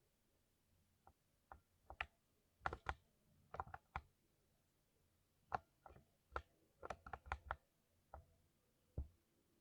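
Keys on a computer keyboard being typed: single keystrokes and quick runs of two or three at an uneven pace, with short pauses between.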